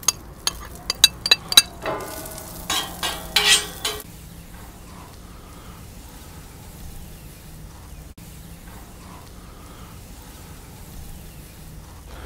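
Egg spätzle tipped from a ceramic bowl onto a hot stainless-steel teppanyaki plate greased with oil and butter. For about the first four seconds there is a run of sharp clinks and louder crackling bursts; after that only a faint, steady sizzle of the noodles frying remains.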